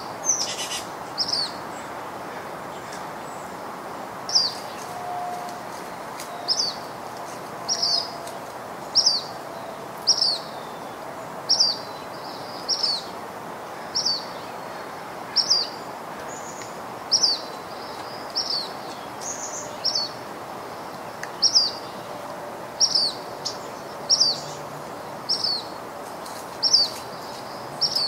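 A bird repeating a single short, high chirp about once a second, over a steady background hiss.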